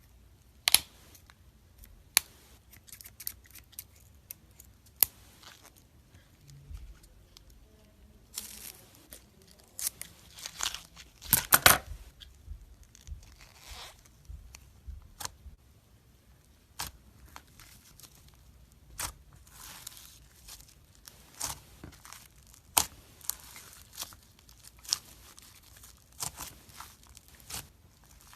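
Slime-filled stress balls being cut open: irregular sharp snips and clicks with softer rustling stretches between them, the loudest quick cluster of snips about twelve seconds in.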